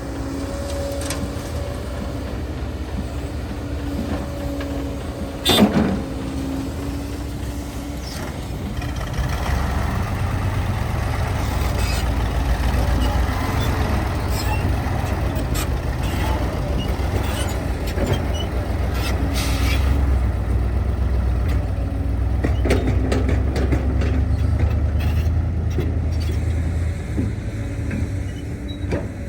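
Diesel engines of an excavator and dump trucks running, the rumble growing louder about nine seconds in as the machine works under load, with scattered knocks and clanks. A sudden loud burst about six seconds in.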